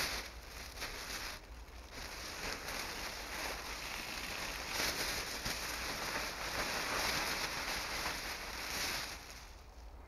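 Reflective foil emergency-blanket sheet crinkling and crackling as a gloved hand pushes and shakes it. It starts with a sharp crackle and dies away about nine seconds in.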